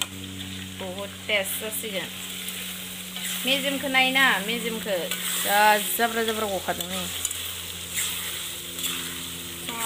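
Meat pieces and ground spices sizzling in hot oil in a steel wok as a steel spatula stirs and tosses them. Several wavering, squealing pitched sounds ride over the sizzle in the middle.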